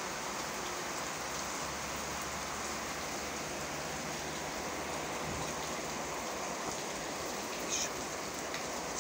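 Steady rain falling, an even hiss that holds level throughout.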